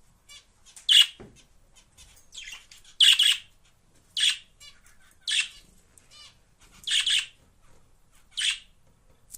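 A pet budgerigar singing: a string of short, sharp, high chirps about every second and a half, with soft warbling chatter between them.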